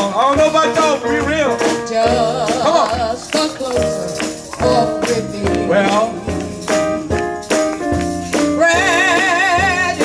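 Live gospel band playing: a woman sings lead with vibrato over a steady drum beat, electric guitar, keyboard and a shaken tambourine.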